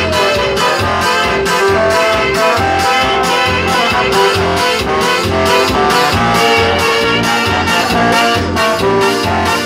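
Live bandinha playing an upbeat dance tune: trumpet and saxophones carrying the melody over electronic keyboard, amplified through microphones and a loudspeaker, with a steady bass beat of about two pulses a second.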